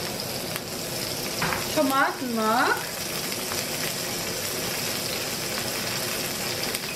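Onions sizzling steadily in hot oil and the drippings left from searing a beef shank in a wide frying pan.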